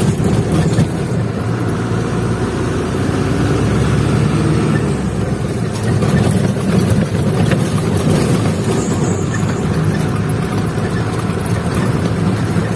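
Truck engine running steadily as it drives slowly, heard from inside the cab, with road noise.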